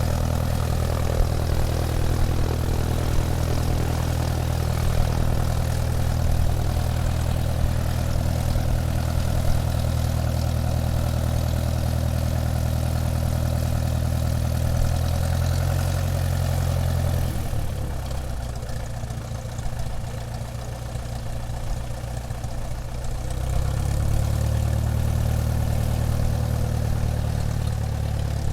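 Airplane engine running steadily while taxiing, a low, even drone. About two-thirds of the way through it eases back and quietens for several seconds, then picks up to the same level again.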